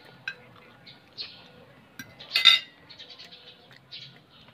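Small clinks and taps of a fork against a plate during eating, with one short, louder noisy sound about two and a half seconds in.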